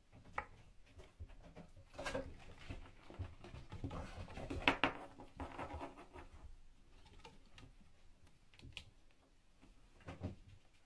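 Pixiebob kittens scampering and pouncing about on a carpeted mat and scratching post: soft irregular patters, scratches and light thumps, busiest in the middle few seconds and sparser towards the end.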